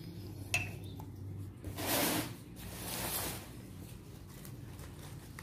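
Crumpled paper packing rustling twice in brief bursts as plants are handled and set down, with a light knock about half a second in.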